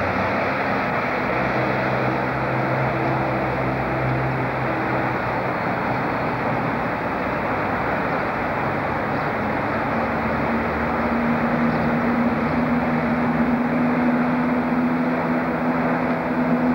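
Diesel locomotive's engine running as the locomotive approaches slowly, a steady drone over an even hiss; about ten seconds in the engine note changes and grows a little louder as it draws nearer.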